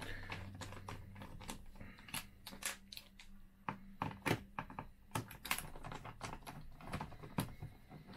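Irregular light clicks and taps from handling the parts of a car instrument cluster, with a faint low hum underneath.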